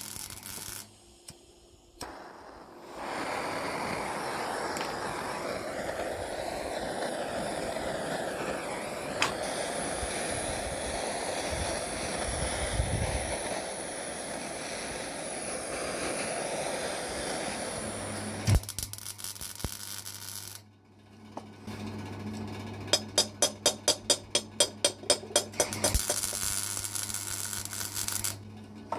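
Gas torch flame hissing steadily as it heats a joint on a cast metal part. It is followed by a low hum, then a fast, even ticking about four times a second near the end.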